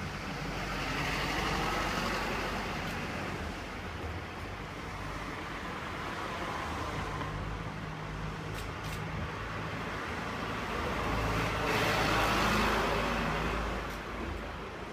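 Diesel rail vehicle engine running with a steady low drone during shunting. Louder surges of broader running noise come about a second in and again, loudest, near the end.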